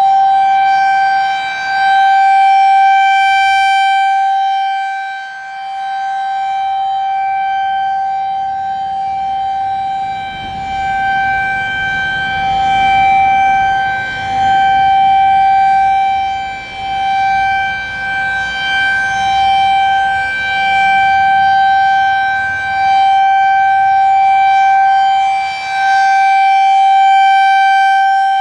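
Federal Signal 2001-SRN rotating electromechanical outdoor warning siren sounding a steady, high-pitched single tone during its monthly test. The pitch holds level while the loudness swells and dips every few seconds as the rotating horn sweeps toward and away.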